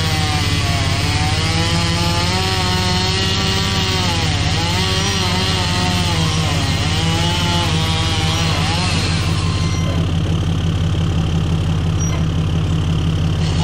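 A chainsaw cutting, its pitch dipping and rising as it loads up in the wood, and stopping about nine seconds in. A steady low engine drone runs underneath.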